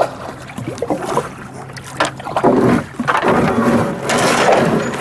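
A canoe being paddled: a few sharp knocks, then three splashing strokes about a second long each in the second half.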